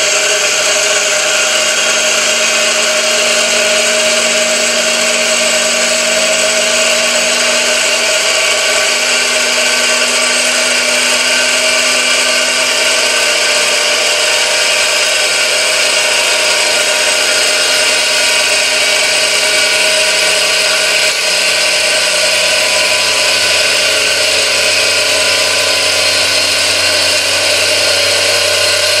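3D-printed plastic gear train running at high speed, churning through its lubricating fluid inside a sealed clear-covered gearbox, driven by an electric motor. It makes a loud, steady mechanical whine of several tones over a wash of hiss. The motor's supply voltage is being turned up, so the gears are being pushed towards higher speeds.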